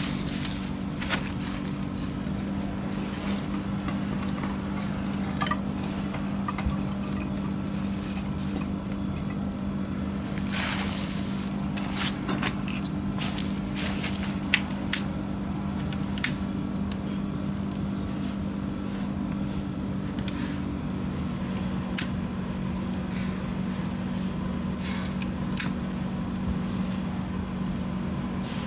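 Wood fire crackling, with scattered sharp pops that come thickest in the middle, over a steady low hum. One tone of the hum drops out about two-thirds of the way through.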